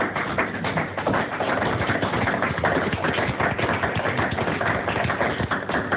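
Audience applause: a steady, dense patter of many hands clapping, following a beatbox performance.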